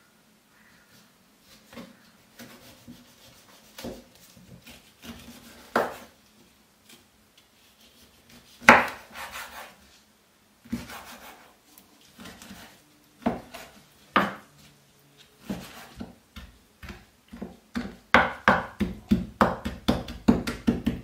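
Kitchen knife cutting lemon on a wooden chopping board: scattered single cuts and knocks of the blade on the board, then a quick run of chopping strokes near the end, about four a second, as the lemon rind is diced.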